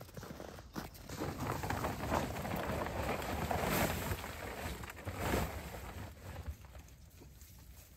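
A plastic tarp rustling and crinkling as it is pulled back off hay bales, with louder swishes about four and five seconds in.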